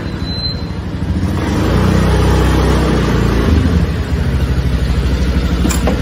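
A motor vehicle engine running steadily, with a couple of sharp clicks near the end.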